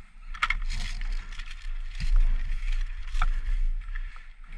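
Handling noise from a body-worn camera as the player shifts and moves through dry grass: rustling and scraping of gear and a low rumble, with three short sharp clicks, the first about half a second in and the last near the three-second mark.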